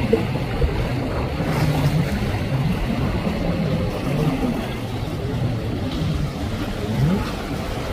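Jet ski engines running over choppy water, their pitch wavering up and down as the riders throttle, over a steady rush of water noise.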